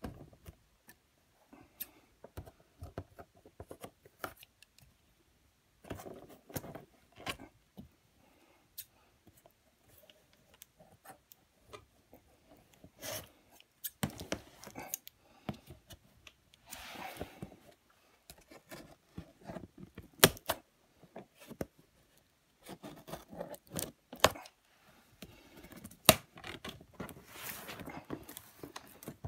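Cardboard toy box being handled and opened: scattered sharp clicks and short scrapes and rustles of cardboard, coming in busier bursts a few times.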